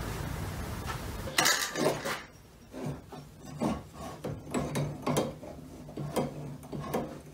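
Metal clinks, knocks and rubbing from hands working the air-hose quick-connect fitting on a homemade compressed-air engine, in short irregular strokes. A brief loud rush of noise comes a little over a second in.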